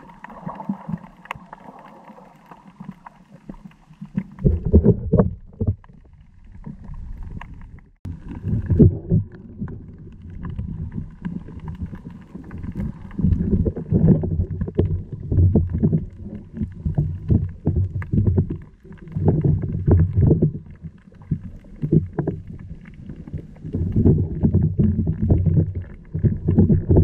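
Muffled underwater rumbling of water surging against the camera housing, in irregular swells. It is quieter for the first four seconds.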